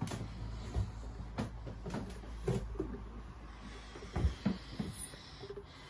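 Scattered knocks and dull thuds of footsteps going down a sailboat's wooden companionway steps into the cabin, about half a dozen irregular impacts.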